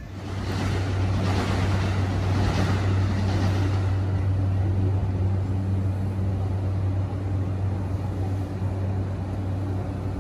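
E235 series 1000 electric train standing at the platform, its onboard equipment giving a steady low hum. A rush of hissing noise rises over it for the first few seconds, then fades.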